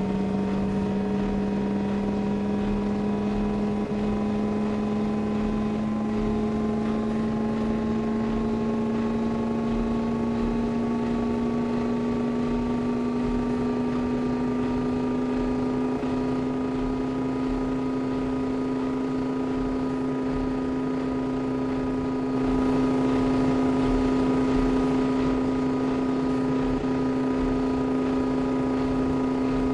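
Kenmore washing machine running with a steady motor hum whose pitch rises slowly and evenly throughout. The sound grows a little louder about 22 seconds in.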